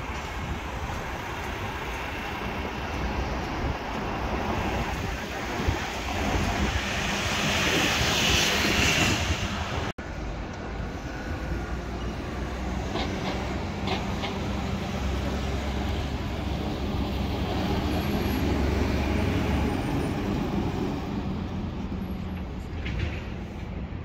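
City traffic noise: a steady rumble of passing vehicles, swelling to one loud, hissing pass about eight seconds in. It breaks off suddenly at about ten seconds, and a deeper rumble of traffic follows.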